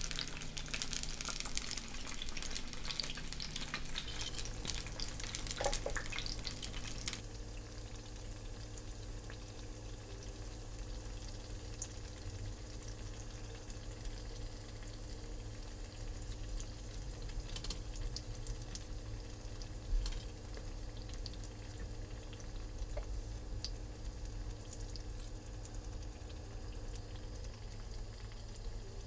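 Besan-battered potato slices deep-frying in hot oil: a dense crackling sizzle that settles after about seven seconds into a softer, quieter sizzle, with a few light clicks as a fork turns the slices in the pan.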